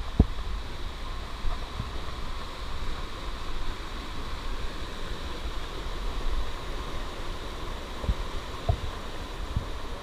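Steady rushing of a rocky forest stream under a low rumble, with a few dull thumps, the loudest just after the start and several more near the end.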